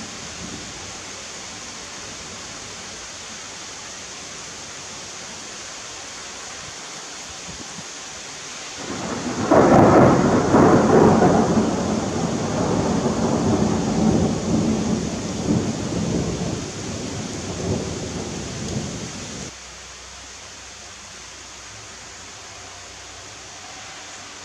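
Thunderstorm: steady rain hiss, then about nine seconds in a loud peal of thunder that rumbles on for about ten seconds before cutting off suddenly, leaving a quieter hiss of rain.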